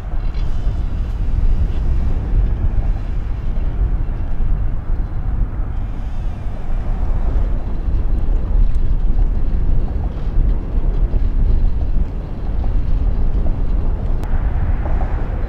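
Steady low rumble of a motorboat under way, with wind buffeting the microphone.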